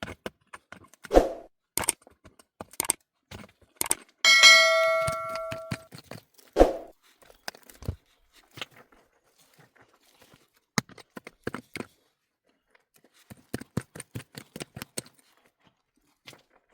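Scattered knocks and taps of hand work, with one metallic clang about four seconds in that rings and fades over about a second and a half.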